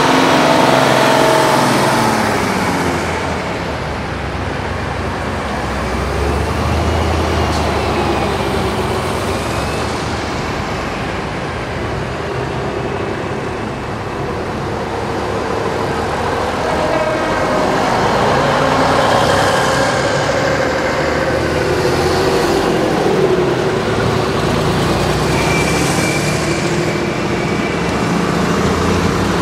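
Vintage buses and coaches driving slowly past one after another, their diesel engines running, the sound swelling as each one comes close: a double-decker bus, then touring coaches.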